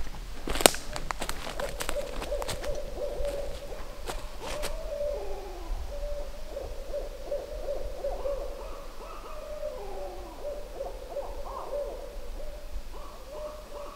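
Several animals calling back and forth in low, hoot-like notes on much the same pitch, one of them farther off; the hiker suspects they are signalling about a predator. A few sharp clicks and rustles come in the first few seconds.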